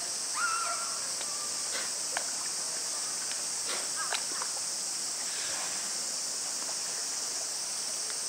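Steady high hiss of running water, with one short steady-pitched animal call about half a second in and a few faint clicks.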